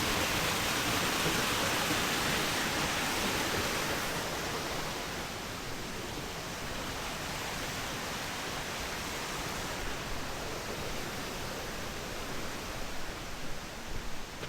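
Waterfall rushing steadily, an even hiss of falling water that drops in level about four seconds in.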